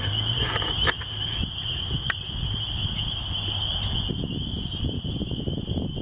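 Chorus of spring peepers: a dense, steady high peeping that runs unbroken over a low rumble, with a couple of sharp knocks. About four and a half seconds in, a bird gives a few short falling chirps.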